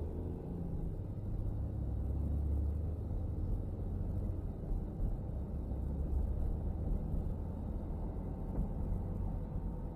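Car driving along: a steady low rumble of engine and tyres on the road.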